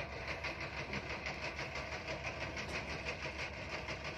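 Boat engine idling with a steady, evenly pulsing clatter.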